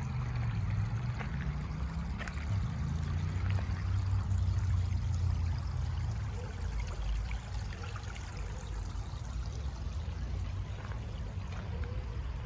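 Steady, deep rumbling noise that swells and eases, with faint scattered ticks above it.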